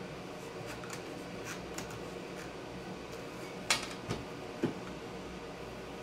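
Handling noises from a cordless angle grinder fitted in a plywood-and-metal saw base, with the motor off: a few faint clicks, then three sharper knocks a little past the middle, over a steady low background hum.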